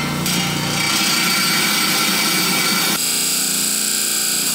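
Diamond-blade wet saw running and cutting through a small piece of agatized coral: a steady, high-pitched grinding whose tone shifts about three seconds in.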